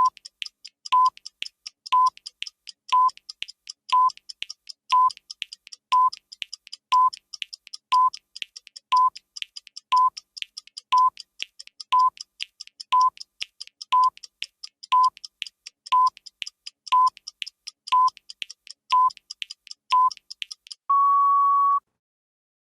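Countdown timer sound effect: a short electronic beep once a second over fast clock ticking. About 21 seconds in it ends with one longer, slightly higher beep lasting about a second, marking the end of the countdown.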